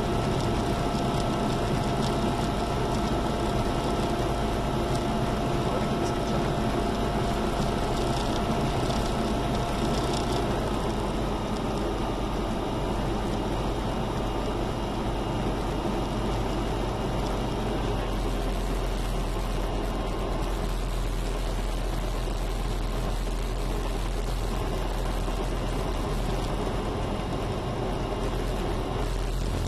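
Diamond HK36 Super Dimona motor glider's piston engine and propeller running steadily, heard from inside the cockpit as a constant drone. A thin high tone in the background stops about ten seconds in.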